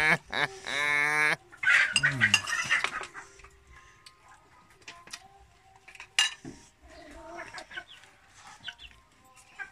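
A chicken calls loudly just under a second in, one long wavering call, with a shorter falling call after it. Then quiet clicks of a spoon on a plate.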